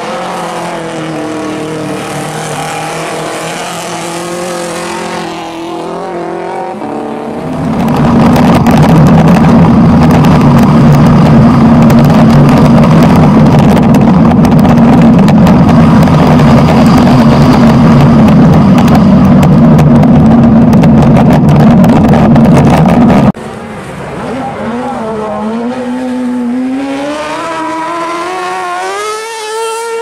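Ice-racing car engines revving up and down, heard from the trackside. About eight seconds in, a long, very loud, steady stretch of engine and wind noise from a camera mounted on the outside of a car starts; it cuts off suddenly about two-thirds of the way through, after which an engine is heard revving up again.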